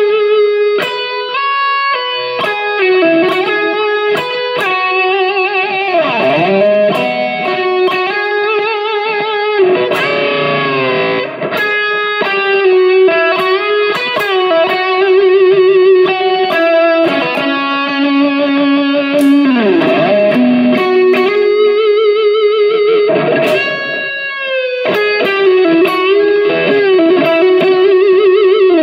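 Electric guitar played through a Valeton GP200 multi-effects processor, heard through a small Cort CM15R amp: a single-note lead melody of held notes with vibrato, several bends and slides.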